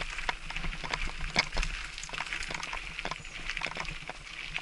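Mountain bike riding over a loose-gravel track: tyres crunching on the stones and the bike rattling, a steady stream of small clicks and knocks with a few louder ones.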